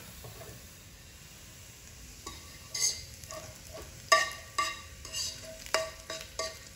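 Minced garlic frying in oil in a wok with a faint sizzle. From about two seconds in, a metal utensil knocks and scrapes against the wok in a run of sharp clanks, some ringing briefly, as the garlic is worked and scooped out.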